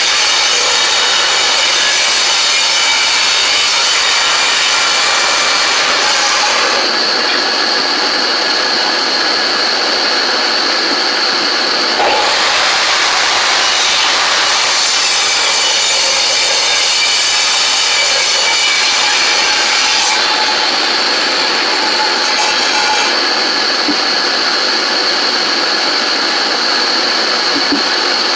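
Ridgid table saw running and ripping planed boards, a loud steady whine with the blade's tone shifting several times as the wood feeds through.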